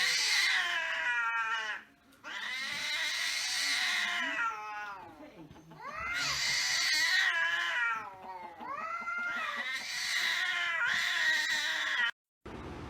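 Cats yowling in four long, wavering cries, one after another: the drawn-out caterwaul of cats squaring off to fight. The yowling cuts off abruptly near the end.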